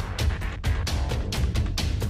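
Electronic background music with a fast, steady percussive beat, about five hits a second, over heavy bass.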